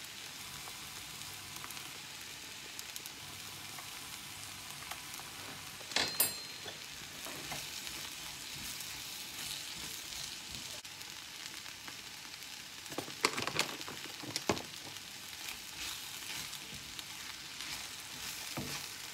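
Rice, onions and spices sizzling in a hot pan while being stirred with a plastic spatula, with a few scrapes and knocks of the spatula against the pan about six seconds in, a cluster around thirteen to fourteen seconds, and one more near the end.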